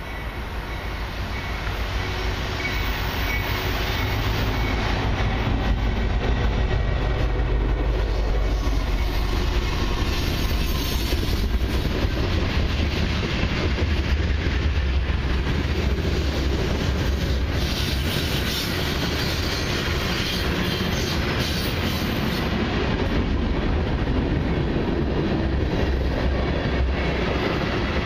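Long CN freight train of mixed cars and autoracks rolling past: a steady low rumble of steel wheels on the rails that builds over the first few seconds and then holds.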